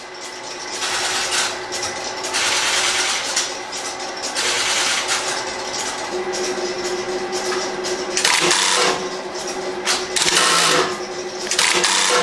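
Stromberg-Carlson XY telephone switches stepping, in repeated bursts of rapid mechanical clatter about a second long. A steady low tone joins about halfway through.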